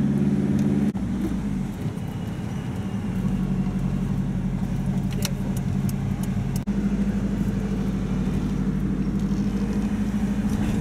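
Car engine and road noise heard from inside the cabin while driving slowly. The engine's steady low hum shifts in pitch a second or two in, and a few sharp clicks come near the middle. The sound breaks off abruptly for a moment twice.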